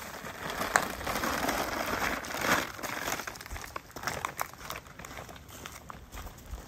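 Crinkling and rustling of a plastic bag being handled and carried, mixed with footsteps crunching through dry fallen leaves, with scattered small crackles throughout.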